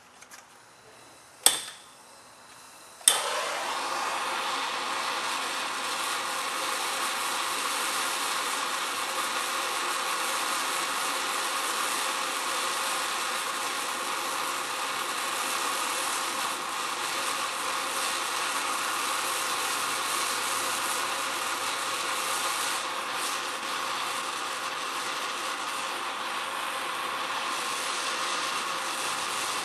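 Handheld gas blowtorch being lit: two sharp clicks about a second and a half apart, the second setting it alight, then the steady hiss of the burning flame.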